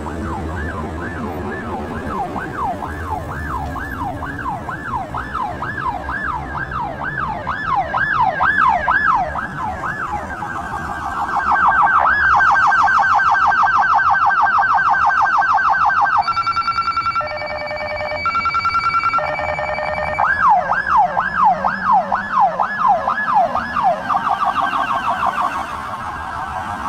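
Los Angeles School Police patrol car's electronic siren. It runs a fast up-and-down yelp for about ten seconds, then an even faster warble. After that come a few seconds of steady alternating horn-like tones, and then the yelp starts again.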